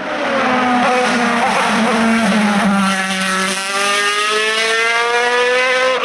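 Single-seater race car's engine accelerating hard up the hill, its pitch climbing between upshifts.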